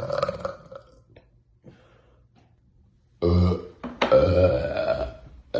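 Loud burps. One trails off at the start; after a pause comes a short burp about three seconds in, then a longer, drawn-out burp just after it.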